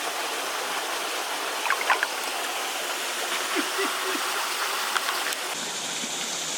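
Steady rush of water from a steep mountain creek running over plunge pools and small cascades, with a few brief sharp sounds about two seconds in.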